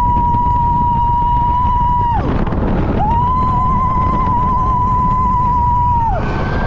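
Roller coaster rider screaming: long held high screams on one steady pitch, each sliding up at the start and dropping away at the end. One ends about two seconds in, another runs from about three to six seconds, and a third begins near the end, with a quick breath between them.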